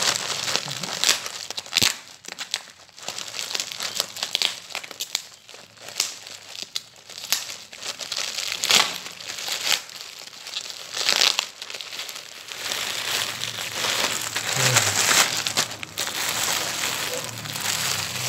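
Plastic packaging crinkling and rustling in irregular bursts as a black plastic shipping mailer is torn open and clothes in clear plastic bags are pulled out.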